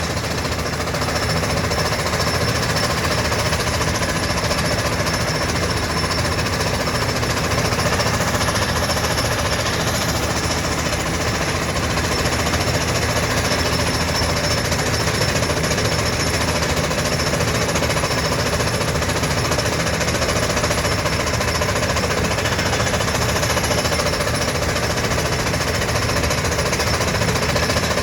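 Compressor-driven percussion drill rig boring into the ground: a steady, rapid hammering that runs on without a break.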